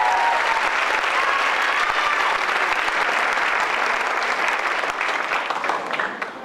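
Audience applauding, with a few voices cheering over the clapping in the first two seconds; the applause starts dying away near the end.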